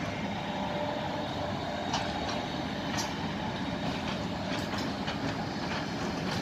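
Electric locomotive rolling slowly along the station tracks: steady running noise with a faint hum, and a few clicks of wheels over rail joints about two and three seconds in.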